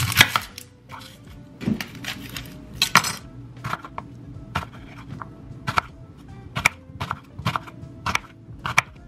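Chef's knife slicing an onion on a bamboo cutting board: sharp knocks of the blade on the board, roughly one a second, over background music.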